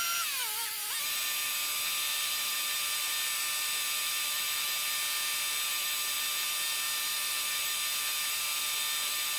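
High, steady mechanical whine of the tractor and carrot-harvester drive running in the field. About half a second in, the pitch dips sharply and comes back within half a second, like a brief load on the drive, then holds steady.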